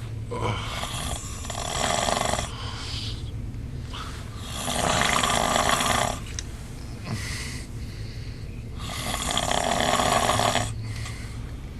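A man snoring in his sleep: three long snores about four seconds apart, with quieter breathing between them.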